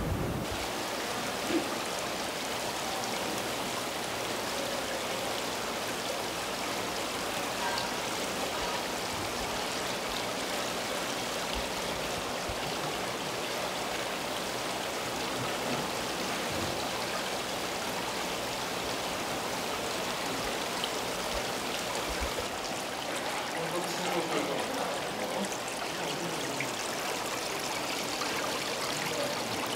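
Water pouring steadily into live-seafood holding tanks: a constant rushing, trickling flow.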